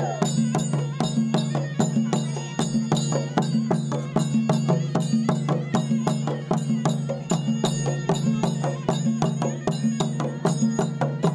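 Tribal folk music: barrel drums beaten in a fast, steady rhythm over a steady low held tone.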